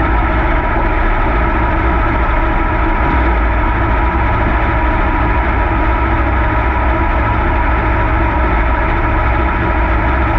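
Super late model dirt race car's V8 engine running loud and steady, holding one even pitch without revving up or down, heard close up on board.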